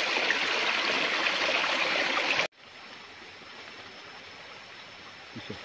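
Small spring-fed forest stream running over rocks, a close, loud rush of water. About two and a half seconds in it cuts off abruptly and the flow carries on much fainter.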